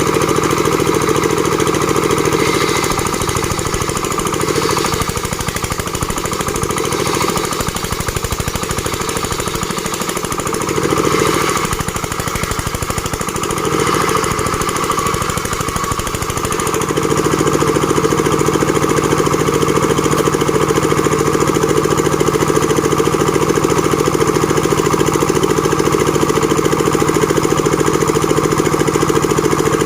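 Engine-driven board-making machine running continuously with a fast, even pulse. It is uneven, with repeated swells, through the first half, then settles into a steady drone for the rest.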